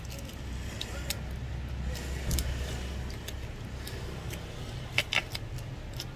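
Scattered light clicks and taps of small parts being handled on a workbench, over a low steady rumble; a louder pair of clicks comes about five seconds in.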